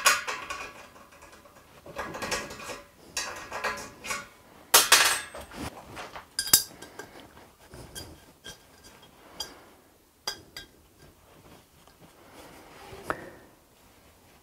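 Cut metal workpieces clinking and clanking as they are handled and set down, a cluster of loud clanks in the first half and sparser light clicks later, some leaving a short metallic ring.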